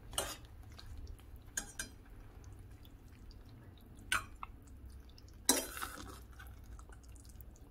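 Metal spoon stirring a thick oat and vegetable mixture in a stainless steel saucepan, clinking against the pot a few times; the loudest clink comes about five and a half seconds in.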